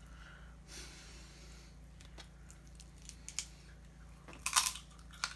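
Snow crab leg shell being cracked and peeled apart by hand, with faint scattered crackles and clicks. About four and a half seconds in comes a louder burst of close-up biting and chewing as the crab meat is eaten.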